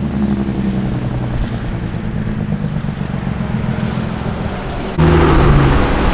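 Semi truck's diesel engine running steadily as the tractor pulls a loaded tanker trailer away slowly. About five seconds in the sound cuts abruptly to another semi's diesel engine, louder and harsher.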